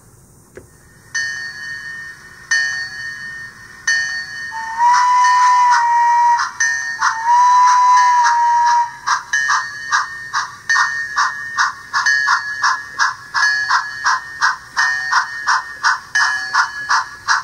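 The onboard sound system of a Bachmann On30 Heisler model locomotive: two long whistle blasts, each sliding up and back down in pitch, followed by a bell ringing in quick regular strokes, about two a second.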